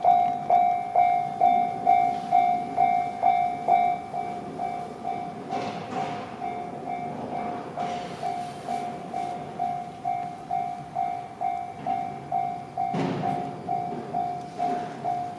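Japanese railway level-crossing warning bell ringing in a steady repeated pattern, about two strokes a second, over the rumble of an approaching train. A sudden louder rush of train noise comes in about thirteen seconds in.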